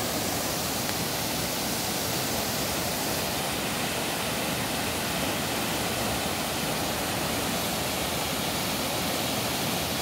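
Waterfall water rushing and cascading over boulders, a loud, steady, unbroken wash of noise.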